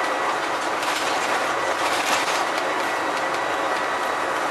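Bus cruising at steady speed, heard from the rear seats near the engine: a steady mix of engine and road noise with a thin high whine, and a few brief rattles about one and two seconds in.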